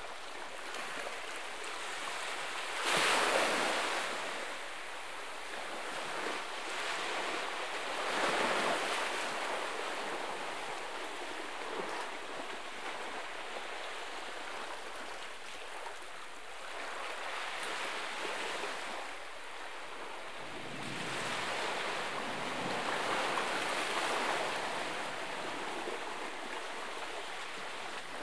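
Small waves washing against a rocky shoreline, the water swelling into a louder surge every few seconds and falling back.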